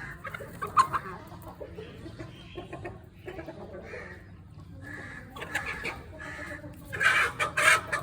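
Aseel chickens clucking in short calls, with a louder burst of calls near the end.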